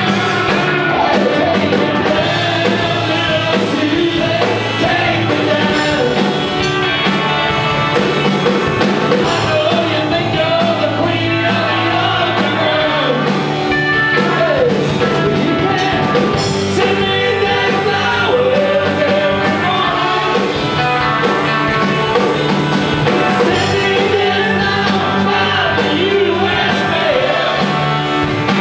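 A rock band playing live: a singing voice over electric guitar and held bass notes.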